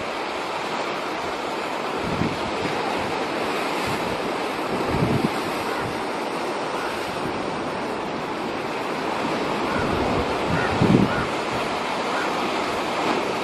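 Sea surf washing steadily, with wind on the microphone and a few low wind thumps, the strongest about five and eleven seconds in.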